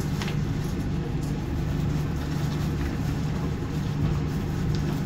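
Ship's machinery running with a steady low hum, with a few faint rustles of the aluminised fire suit being handled.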